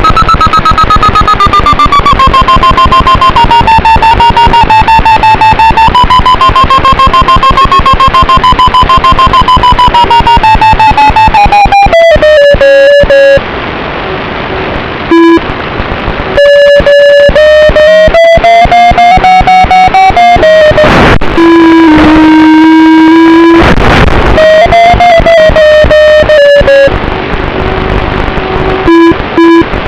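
FPV quadcopter's brushless motors whining, loud and distorted. The pitch glides smoothly up and down with the throttle and drops away briefly twice when the throttle is cut.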